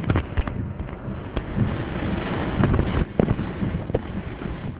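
Rain hitting the car's windscreen and body, heard from inside the car: a steady rushing noise with many irregular sharp taps.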